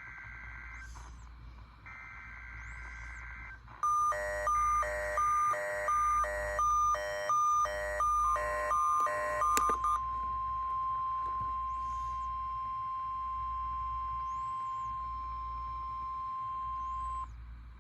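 NOAA Weather Radio alert test: two bursts of the warbling digital SAME header tones, then a weather-alert receiver's alarm beeping about ten times in quick succession, overlapped and followed by the broadcast's 1050 Hz warning alarm tone, one steady high tone held about nine seconds before cutting off.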